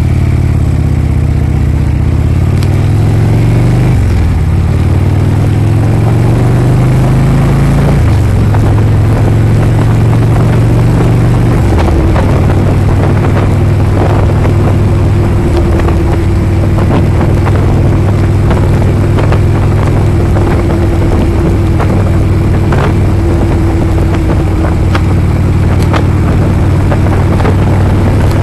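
Harley-Davidson V-twin motorcycle engine pulling away and accelerating, rising in pitch through the gears with shifts about 4, 8 and 12 seconds in, then running at a steady cruising speed.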